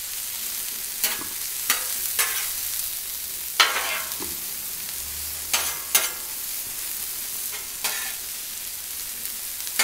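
Chopped red bell and poblano peppers sizzling in oil on a hot steel Blackstone flat-top griddle, with a metal spatula scraping and clacking against the griddle surface several times as the peppers are stirred.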